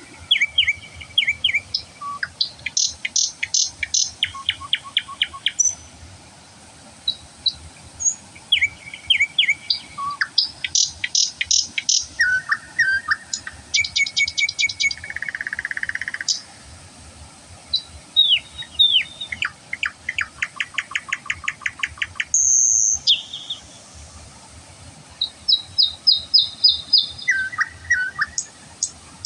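Songbirds singing in the wild: phrase after phrase of fast trills, runs of quick repeated notes and short high whistles, with brief pauses between phrases.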